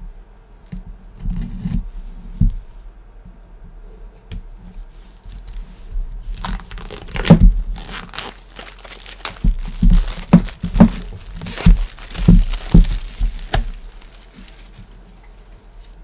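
Clear plastic shrink wrap being torn and pulled off a cardboard box, crinkling and crackling loudly from about six seconds in for some seven seconds. A few soft handling knocks come before it.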